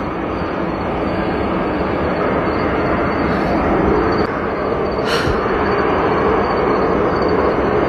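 A steady, loud rumbling drone of unknown origin, one of the reported 'strange sounds in the sky', heard continuously in the open air. A single brief sharp sound cuts through it about five seconds in.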